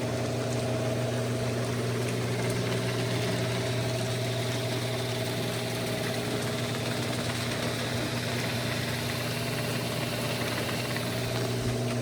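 Genie IntelliCode IS900A screw-drive garage door opener running through a full travel: a steady, fairly quiet motor hum that cuts off suddenly at the end of the run.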